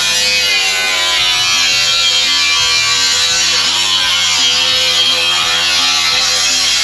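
Background music over the steady buzz of a power tool's electric motor running.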